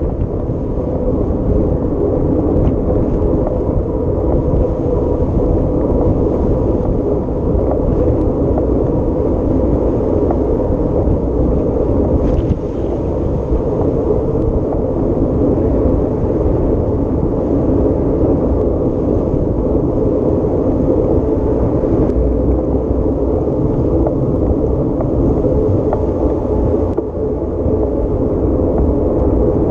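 Off-road vehicle's engine running steadily under way, with a constant low rumble and no breaks.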